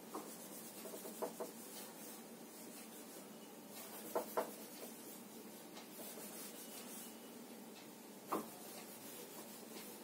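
Faint rubbing of a whiteboard eraser wiping marker off the board in strokes, with a few short knocks of the eraser against the board, the loudest about four seconds in and again near eight seconds.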